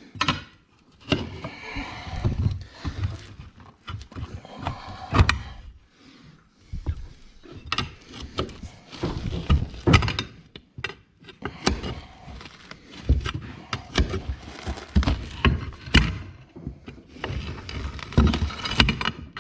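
Hammer and steel tyre lever working a tractor tyre's bead off its rim: irregular knocks and thuds with scraping between them.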